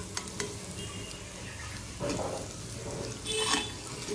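Chicken pieces sizzling quietly in hot oil as a slotted metal spatula scoops them out of the pan, with a few light clicks of the spatula against the pan near the start.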